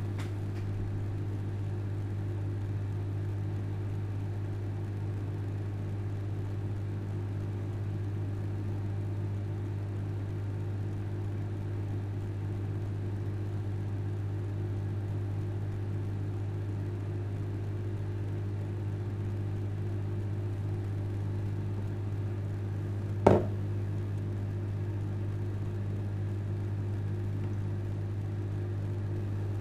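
Microwave oven running at full power with a steady low hum, cooking potatoes in a steam bag. One sharp knock sounds late on.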